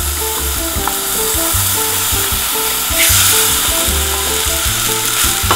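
Udon noodles sizzling as they are tipped into a hot pan of oil, soy sauce and stir-fried vegetables and stirred with a wooden spoon. The sizzle swells louder about three seconds in. Background music with a steady bass line plays underneath.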